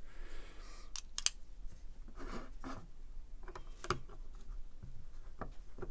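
Small Torx driver backing out the T6 screws of a pocket knife's pocket clip: light metallic clicks and short scrapes, with two sharp clicks about a second in and another near four seconds.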